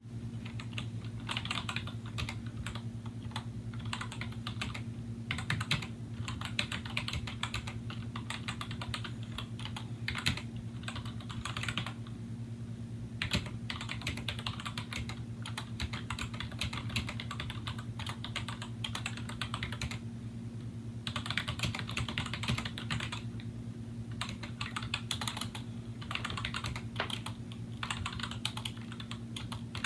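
Continuous typing on a 2000 Apple M7803 Pro Keyboard, its Mitsumi rubber-dome keys with integrated sliders clicking in fast runs broken by brief pauses, over a steady low hum.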